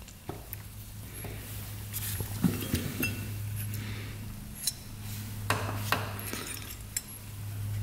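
Scattered small metallic clicks and clinks as a disassembled motorcycle carburetor, float bowl off, is picked up and turned over in gloved hands, its float assembly being handled, with a short rustle a little past the middle.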